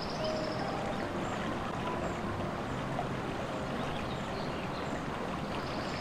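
Steady rushing of a flowing stream, with short high chirps scattered over it.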